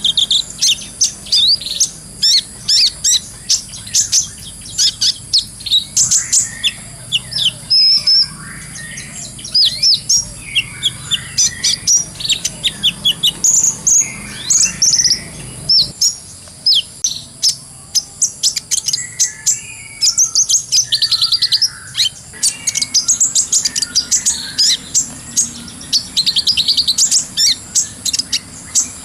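Kolibri ninja sunbird singing a fast, high-pitched twittering song: dense runs of quick chirps and trills, near-continuous, with brief gaps.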